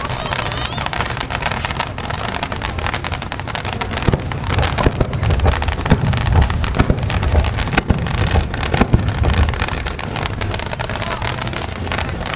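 Fireworks display: bangs and crackles that come thicker from about four seconds in, with wind noise on the microphone.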